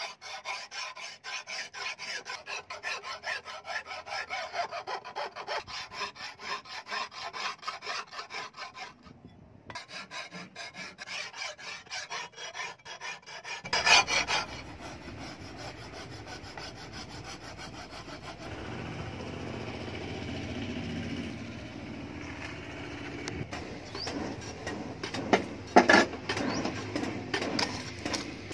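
A hand file stroked rapidly back and forth along a steel kitchen knife blade, a dry rasping with a short pause partway. About halfway the sound changes to the charcoal forge: a steady low rush, with a few sharp metallic clinks near the end.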